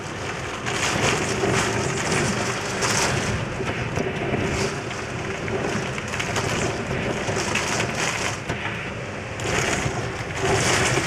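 Typhoon wind and rain: a steady rush of rain with gusts of wind swelling and easing every second or two.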